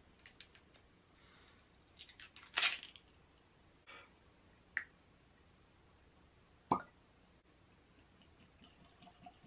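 A cork stopper is worked out of a bourbon bottle with rubbing and squeaking, then comes free with a short pop. A sharp knock follows as the stopper is set down on the table. Near the end there is a faint trickle as whiskey starts to pour into a tasting glass.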